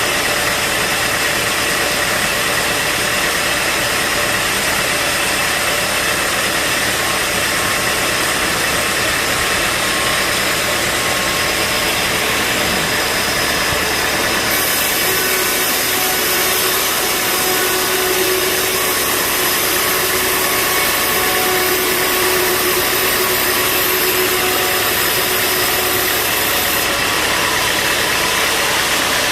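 Bandsaw sawmill running steadily with a dense mechanical drone. A high whine and a steadier mid tone join about halfway in and stop a couple of seconds before the end.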